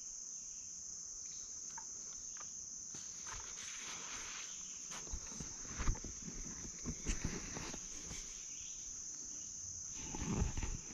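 Steady high-pitched chorus of summer insects, with the crunching and rustling of footsteps through leafy undergrowth and a few louder thumps from about three seconds in.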